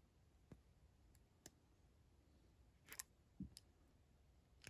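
Near silence with about half a dozen faint, scattered clicks and taps, a pair close together near the middle: small bent brass-wire pieces and pliers being handled on a cutting mat.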